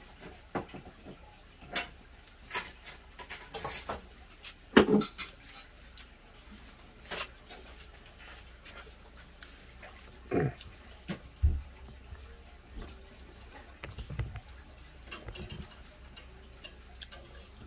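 A metal spoon clinking and scraping in a stainless-steel bowl, mixing rice, with scattered knocks. A few brief low thumps come later.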